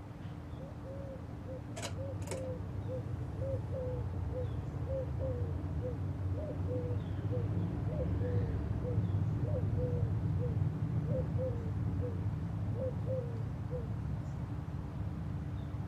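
Sears Turn of the Century Deluxe ceiling fan motor running with a steady hum, growing louder over the first several seconds. Two sharp clicks come about two seconds in. Short faint chirps repeat about twice a second over the hum.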